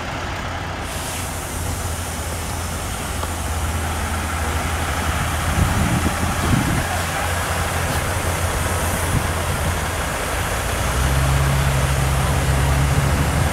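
Jeep Wrangler's engine running at low speed close by, a steady low hum that grows louder and fuller about eleven seconds in as the SUV comes alongside. There is a constant wash of background noise throughout.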